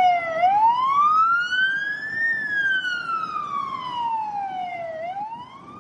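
A siren wailing, its pitch sweeping slowly up for about two seconds and down for nearly three, then starting up again as it fades out near the end.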